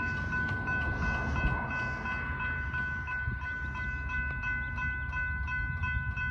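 Railroad crossing warning bell ringing in a quick, steady repeat while the crossing is active, signalling an approaching train. A low rumble runs underneath.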